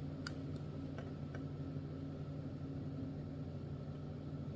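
Steady low hum, with three faint light clicks in the first second and a half as tweezers place a tiny conductive pad on a rubber remote-control keypad.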